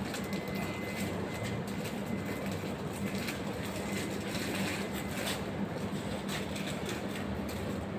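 A steady low mechanical hum with scattered clicks and knocks.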